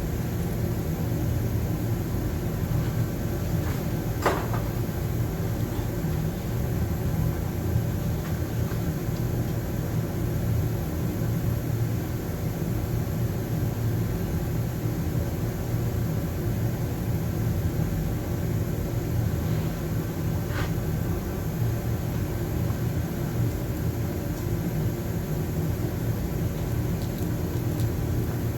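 Steady low rumble of background machinery, with two brief sharp clicks, one about four seconds in and one about twenty seconds in.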